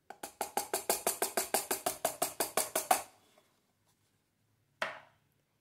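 A rapid, even run of sharp knocks, about eight a second for some three seconds, as the cardboard cornstarch box is tapped to shake its last powder into an aluminium pot. One more single knock comes near the end.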